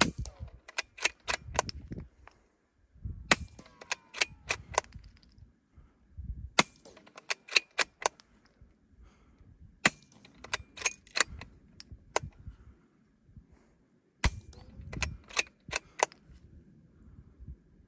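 Five suppressed .22 LR shots of subsonic CCI Quiet ammunition from a Christensen Arms Ranger 22 bolt-action rifle fitted with a Little Spoon silencer, fired about three to four seconds apart. The shots are quiet. Each is a sharp crack followed by a quick run of lighter metallic clicks as the bolt is cycled.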